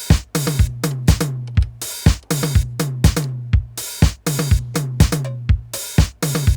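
Roland TR-707 drum machine playing a looped pattern: a steady beat with a kick drum about twice a second and bright cymbal and hi-hat hits between, its sample-based voices sounding clean after repair.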